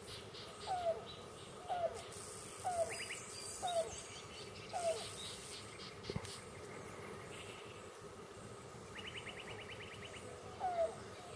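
Presumed female yellow-billed cuckoo cooing: a series of five low, slightly falling coos about a second apart, then a pause and another coo near the end.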